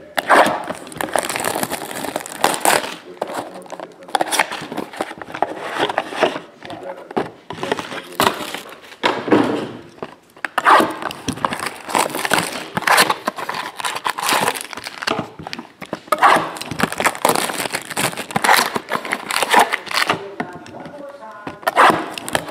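Plastic shrink-wrap crinkling and tearing as it is peeled off sealed trading-card boxes, in irregular crackly bursts.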